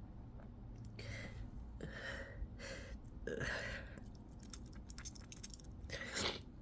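A person's short, breathy gasping inhalations, about five in a row, the halting breaths of a sneeze building up after pepper. A run of faint quick clicks comes between the last two breaths.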